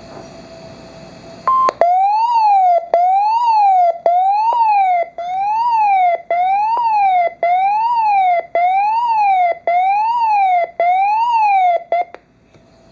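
Weather alert radio sounding its alarm for an incoming warning: after a brief steady beep, a siren-like tone sweeps up and down about once a second, nine or ten times, with a click at each cycle, then stops. Faint radio hiss is heard before it starts.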